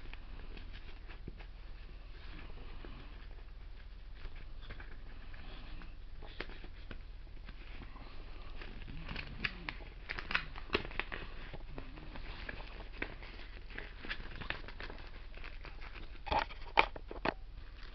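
Packaging being handled and opened by hand: scattered crinkling and crackling with sharp clicks, sparse at first and busier in the second half, with a few louder snaps near the end.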